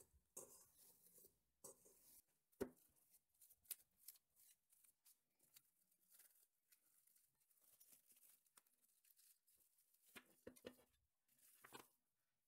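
Faint crinkling and rustling of plastic cling film as hands press and wrap a slab of gingerbread dough, with scattered small clicks and a sharper knock about two and a half seconds in.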